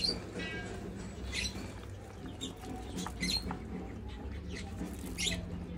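Newborn puppies squeaking: short, high-pitched squeaks, about six of them scattered over a few seconds.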